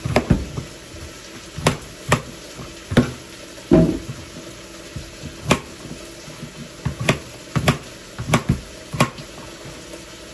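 Chef's knife chopping carrot and potato on a cutting board: a dozen or so sharp knocks at irregular spacing, some in quick pairs, over a faint steady hiss.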